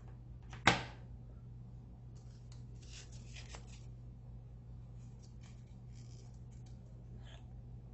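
A sharp knock as a plastic hot glue gun is set down on a wooden table, followed by soft rustling of folded paper petals being pressed together by hand, over a low steady hum.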